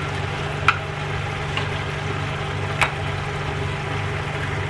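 Green mussels in a shallow sauce simmering and sizzling in a stone-coated frying pan, over a steady low hum. Two sharp clicks come through, one under a second in and one about three seconds in.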